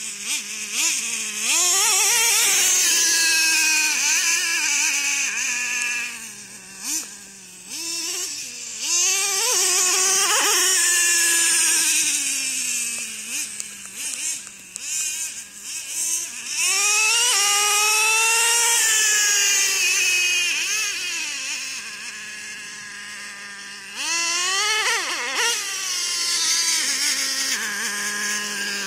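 Traxxas T-Maxx 3.3 nitro RC truck's small two-stroke glow engine revving up and down in high-pitched sweeps as it is driven, several throttle bursts in a row. It drops back to a steady idle about three-quarters of the way through, and again near the end.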